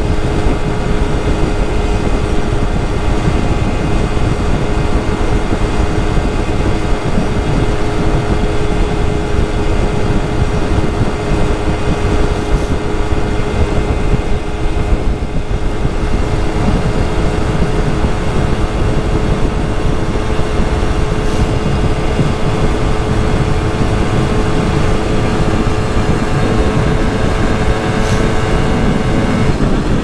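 Simson 50 cc single-cylinder two-stroke moped engine running under way at a steady, held pitch, over a dense low rumble. Its pitch shifts just before the end.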